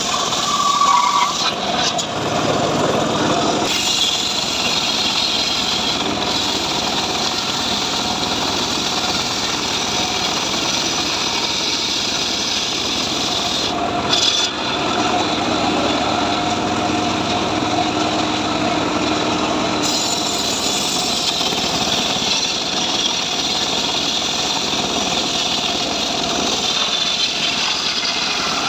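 Engine-driven homemade sawmill (gergaji srekel) running steadily while sawing sengon wood.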